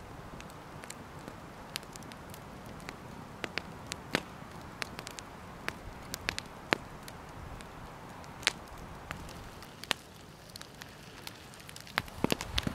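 Wood campfire crackling, with irregular sharp pops over the steady rush of the flames and a quick cluster of louder pops near the end.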